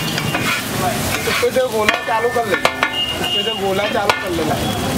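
Metal spatulas scraping and clacking against a large flat iron griddle as a heap of egg fried rice is mixed, over a steady sizzle. Between about one and a half and four seconds in there is a quick run of knocks, with brief metallic rings and squeaks.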